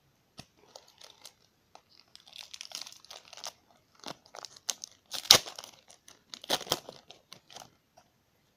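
A hockey card pack being torn open by hand, the wrapper crinkling and crackling in irregular bursts, with the sharpest crackles a little past halfway.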